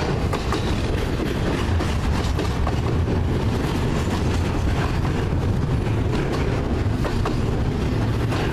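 Double-stack intermodal well cars loaded with containers rolling past close by: a steady heavy rumble of steel wheels on rail, with scattered clicks.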